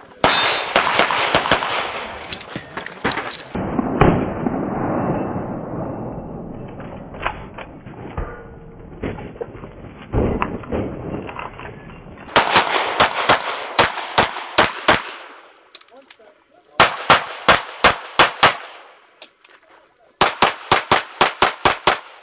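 Pistol fired in rapid strings, several shots a second, with short pauses between the strings. The firing is densest in the first half, and toward the end it comes as distinct strings of about seven or eight quick shots.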